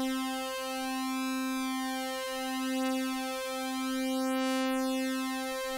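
A SuperCollider synth of two sawtooth oscillators holding a steady middle C, one oscillator slowly detuned by a gentle vibrato. This gives a slow phasing beat in the tone, which swells and dips every second or so.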